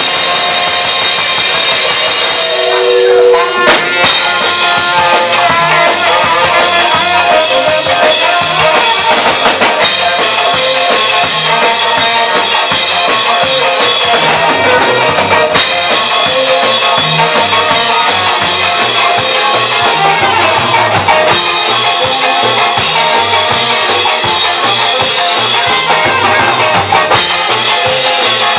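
Live ska band playing: saxophone, electric guitars, bass guitar and drum kit with a steady beat. About three seconds in there is a short break with held horn notes, and a sharp drum hit brings the full band back.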